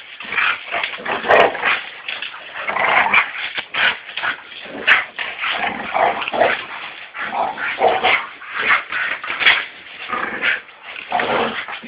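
Pit bulls vocalising as they play, with a busy run of short, irregular bursts of dog noise.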